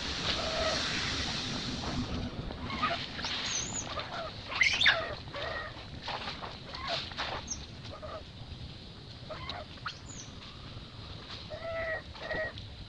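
Newborn macaque crying: a string of short, high-pitched calls, the loudest a little under five seconds in.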